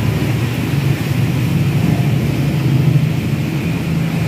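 Steady low engine drone, unchanging throughout.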